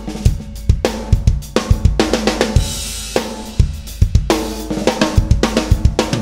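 Risen Drums acoustic kit played in a busy groove, with repeated kick and snare hits under hi-hat and cymbal wash, several strokes a second. The close-miked recording has limiting and compression on the output and EQ on the master bus.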